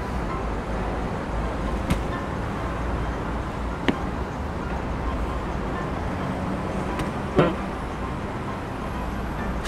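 Steady road traffic, cars passing by, with a few faint clicks and one short, sharp noise about seven and a half seconds in.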